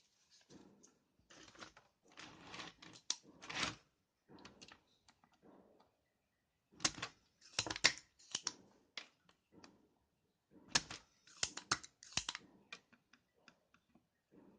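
Irregular plastic clicks and clatter from an opened mechanical keyboard being handled and worked on. The sounds come in scattered clusters with short quiet gaps between.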